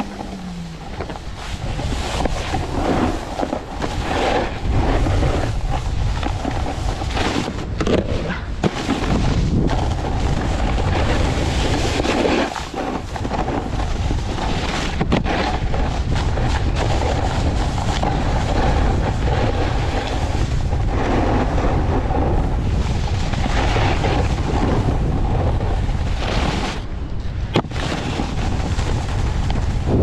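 Snowboard edges and base scraping and chattering over hard-packed, icy snow while riding downhill, with a steady rush of wind over the microphone.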